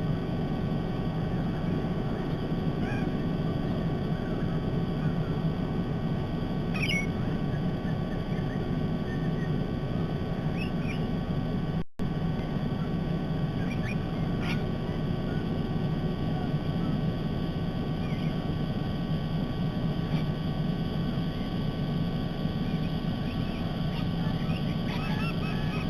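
Steady low outdoor rumble, like wind and distant background noise at a treetop nest camera. A few faint, short bird calls sound now and then. The sound drops out for an instant near the middle.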